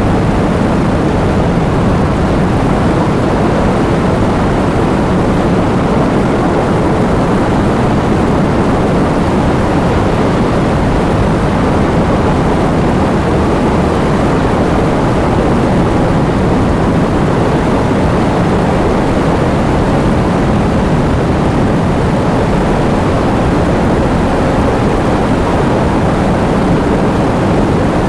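Heavy rain falling as a steady, dull rushing noise, even throughout, with no single drops or thunder standing out.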